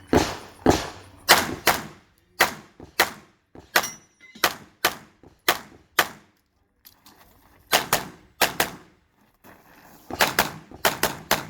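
A rapid string of handgun shots, fired mostly in quick pairs, with short pauses of a second or two between groups.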